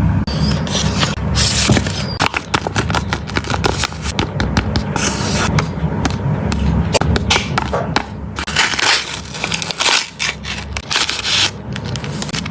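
Blind bag's crinkly foil-plastic wrapper crackling and being scrunched as it is opened, a dense run of irregular crinkles and scrapes close to the microphone, with a low handling rumble underneath.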